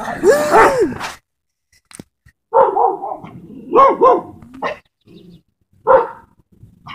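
A dog barking repeatedly: about six short barks at uneven intervals, two of them in a quick pair near the middle.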